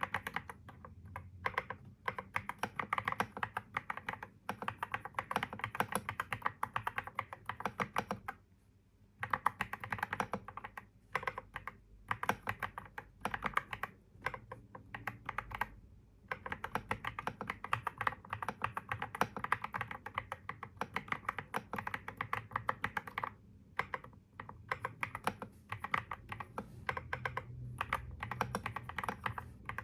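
Typing on a computer keyboard: fast, continuous runs of key clicks with brief pauses, the clearest about eight and twenty-three seconds in.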